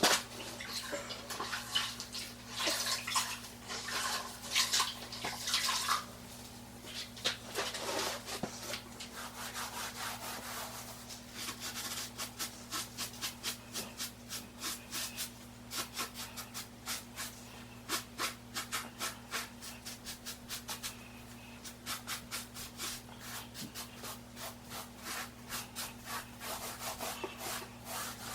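A damp sponge rubbed back and forth over a freshly laid, still-setting mortar shower pan, smoothing its surface: a rough rubbing sound, in irregular strokes at first, then a steady rhythm of about two strokes a second from about halfway on. A faint steady hum lies underneath.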